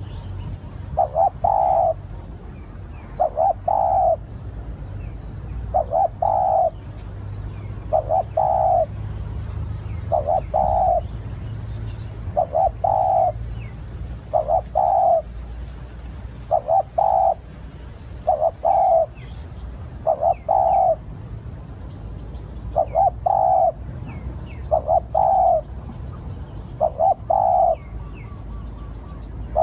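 Spotted dove cooing its territorial call, a short phrase of low coos repeated about every two seconds. Thin, high chirps of small birds come between the phrases.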